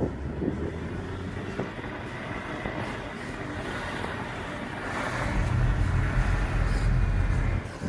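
BMW E90 on the move: steady road and tyre noise, with a low rumble that swells about five seconds in and drops away just before the end.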